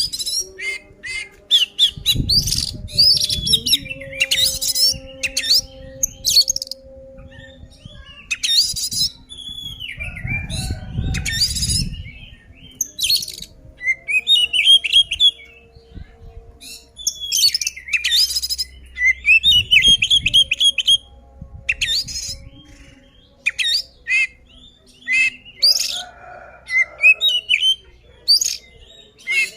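Oriental magpie-robin (kacer) singing loudly and almost without pause: a fast, varied run of whistles, chirps and harsh notes. This is the aggressive fighting song that provokes rival males. Low rumbles come in twice underneath the song.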